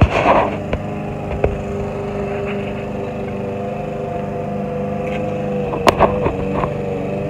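A motor running steadily with an even pitched hum that wavers slightly. There is a brief rustle at the start and a sharp knock about six seconds in.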